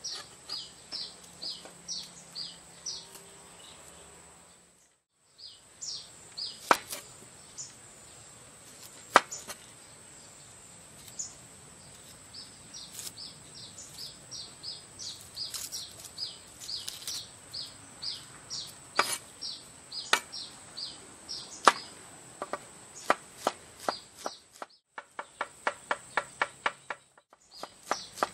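Cleaver blade striking a wooden cutting board as vegetables are chopped, in scattered single chops and then a fast, even run of chops near the end. Behind it run a steady high insect drone and short chirps repeating about twice a second.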